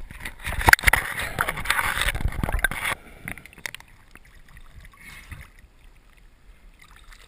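Water churning and bubbling close to an underwater camera for about three seconds, with a couple of sharp knocks about a second in, as a diver with a speared bass comes up; after that, quieter water sounds at the surface.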